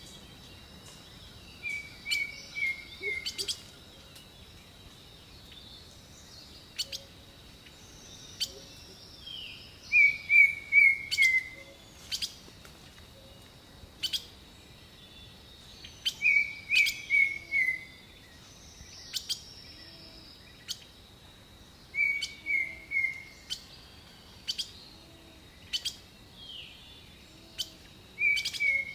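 A songbird singing a short phrase of three to five quick, descending notes, repeated about every six seconds. Sharp clicks sound in between the phrases.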